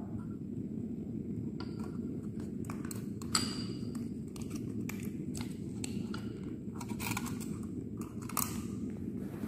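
Light clicks, taps and crinkles of hands working at a lab bench: the foil cover is lifted off a small glass beaker, with the sharpest click about three and a half seconds in, and a micropipette is lowered into the beaker of antibiotic solution. A steady low rumble runs underneath.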